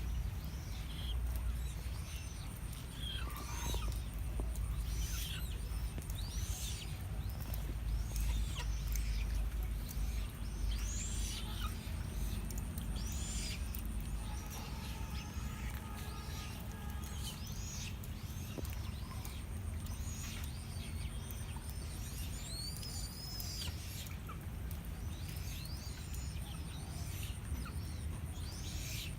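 Chích cồ birds calling: a steady run of short, high chirps and arcing call notes, repeating irregularly, over a low steady hum.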